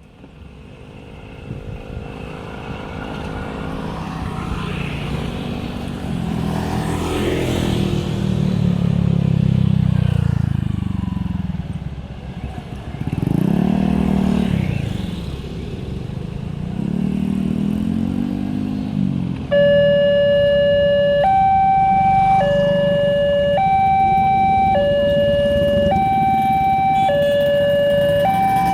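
Road vehicles passing with engine notes swelling and fading; then, about two-thirds of the way in, a level-crossing early warning alarm starts through a horn loudspeaker: a slow two-tone siren switching between a lower and a higher tone about every second and a quarter, warning of an approaching train.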